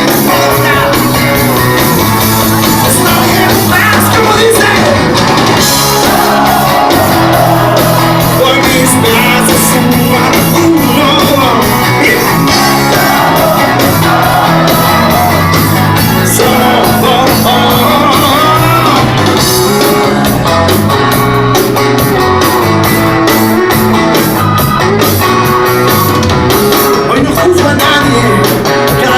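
Rock band playing a song with a singer's vocals over guitar, bass and drums, loud and continuous.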